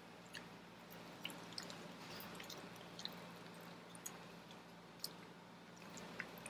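Faint wet chewing and lip-smacking from banana pieces being eaten, a scattering of soft, sharp clicks, over a faint steady low room hum.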